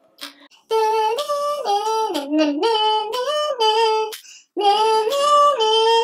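A woman's voice singing a short wordless waiting tune in clear, stepped notes, breaking off briefly about four seconds in before carrying on.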